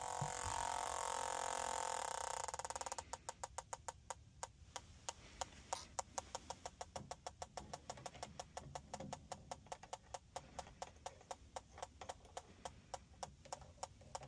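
Electronic combustible-gas leak detector sounding: a steady whine that cuts off about three seconds in, then fast, even ticking at about five ticks a second, its background rate with no gas leak found at the joints.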